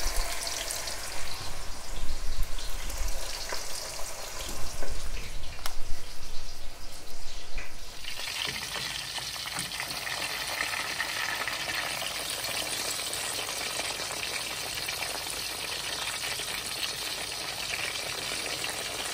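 Chapli kebabs deep-frying in hot oil: a steady sizzle with bubbling. Irregular low bumps ride over it for the first several seconds. About eight seconds in, the sound changes suddenly to an even, brighter sizzle.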